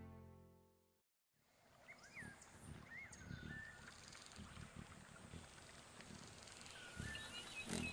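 Music fades out to a moment of silence. Then a quiet wild-nature ambience begins: a few short whistled bird chirps over a low rustling, rumbling background of animal movement, as in a cinematic surround-sound demo.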